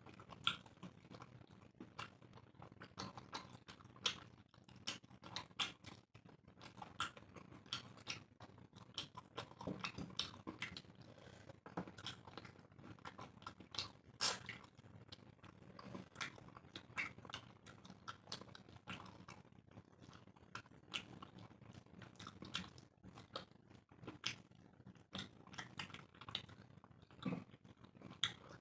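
Two people eating rice and chicken curry by hand: wet chewing and lip smacking, heard as many short, irregular clicks, the loudest about halfway through.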